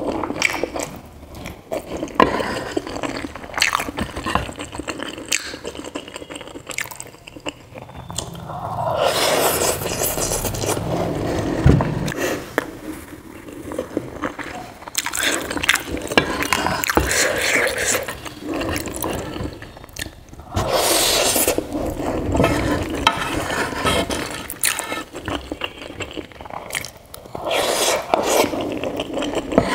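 Close-up mouth sounds of chewing soft, saucy macaroni, with a wooden spoon scraping and knocking against the pan as mouthfuls are scooped up.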